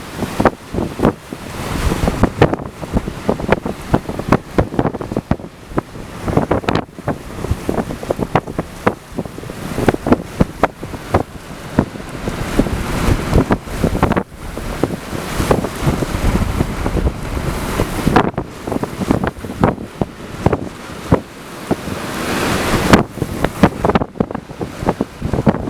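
Hurricane-force wind gusting against the microphone, surging and easing every few seconds, with many short sharp pops.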